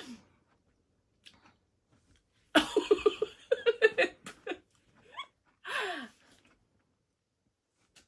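Laughter in quick pulses, starting about two and a half seconds in and lasting about two seconds, then a short burst of laughter with a falling pitch about six seconds in.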